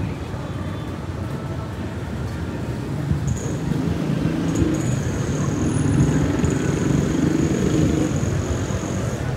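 Street traffic noise: motor vehicles running past, with one engine hum swelling and fading over the middle of the stretch. A thin, steady high whine sits above it in the second half.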